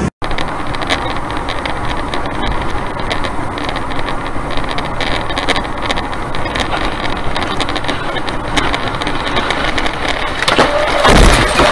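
Steady road and engine noise of a car driving on a highway, with scattered ticks, then near the end a sudden loud crash as a Tu-204 airliner breaks apart after overrunning the runway onto the road, followed by a steady tone.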